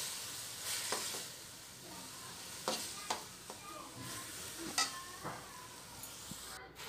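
Shredded cabbage, carrot and peppers sizzling in an aluminium kadai while a slotted metal spatula stirs them, scraping and clinking against the pan several times.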